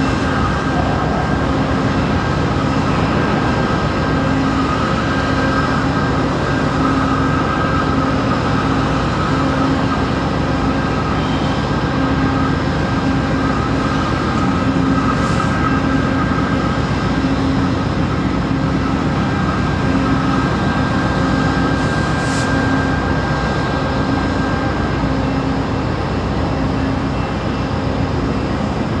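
VIA Rail GE P42DC diesel locomotive standing at the platform with its engine running steadily, a continuous mechanical drone with a low hum that swells and fades about once a second.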